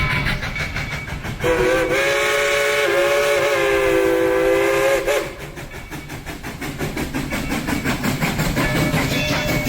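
Steam locomotive's chime whistle blowing one long blast of several notes sounding together. It starts about a second and a half in and cuts off after about four seconds, over a steady rhythmic clatter from the train.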